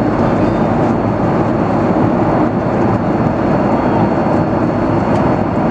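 Steady roar of a Boeing 737's engines and airflow heard from inside the passenger cabin in flight, an even noise with no break.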